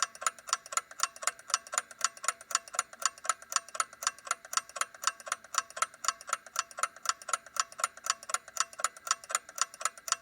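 Clock ticking: a fast, even run of sharp ticks, several a second.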